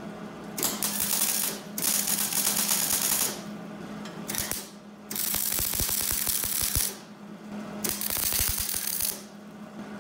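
MIG welder tack-welding an exhaust tube to a reducer: five separate bursts of crackling arc, each about one to two seconds long, with short pauses between them.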